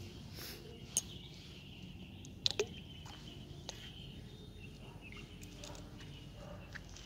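Outdoor ambience with steady high insect chirring and a few sharp clicks, the loudest two about two and a half seconds in.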